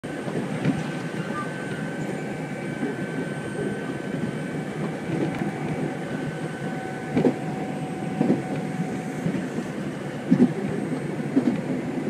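Nankai 7100 series commuter train running, heard inside the car beside a closed door: a steady rumble with a few sharp knocks. A thin high steady tone holds for several seconds, then gives way to a lower one.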